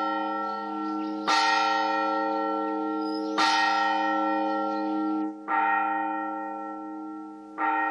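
Monastery church bell tolling slowly, four strokes about two seconds apart, each ringing on into the next: the bell calling the monks to Matins, the night office.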